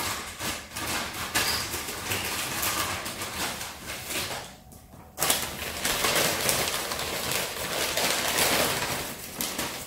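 Crinkling and rustling of packing wrapping as a glass piece is unwrapped by hand, with a brief lull about halfway through.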